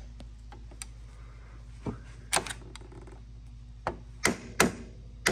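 Scattered sharp clicks and knocks of small metal and plastic parts and a tool being handled on an ATV handlebar while a throttle assembly is fitted, with the louder taps near the end.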